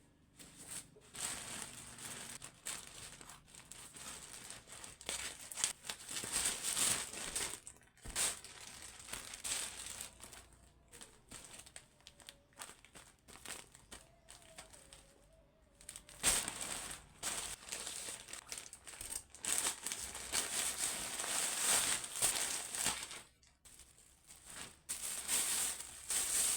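Packaging crinkling and rustling as a parcel is opened by hand, in irregular bursts with some tearing.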